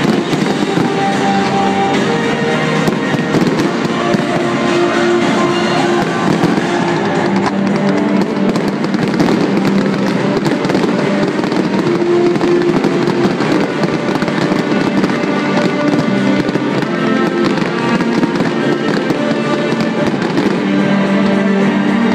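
Fireworks finale: a rapid string of bangs and crackling star bursts over music played with the display, the bursts densest in the middle and thinning out near the end while the music carries on.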